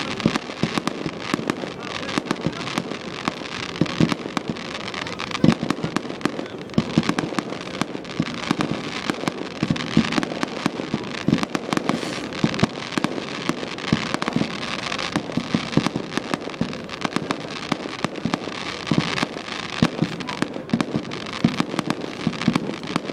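Fireworks finale: a dense, continuous barrage of bangs and crackling as many shells burst in quick succession.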